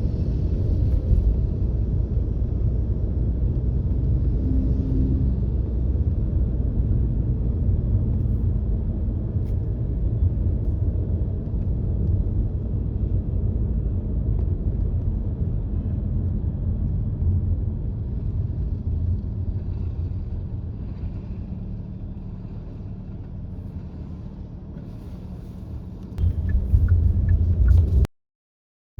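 A car driving: a steady low rumble of engine and road noise. It eases off for a while past the middle and swells again near the end, then cuts out to silence for the last second.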